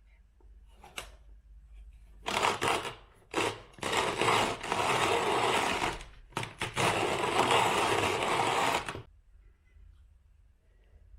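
Hand-cranked burr coffee grinder grinding beans, in several stretches of crunching whirr with short pauses between them.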